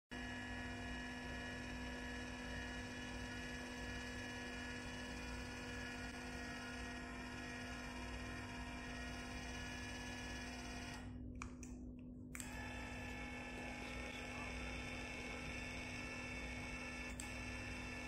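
Small 24 V DC linear actuator's electric motor and gearbox running with a steady hum as the rod moves. The hum cuts out for about a second partway through, as the actuator stops and reverses, then runs again with a slightly changed tone.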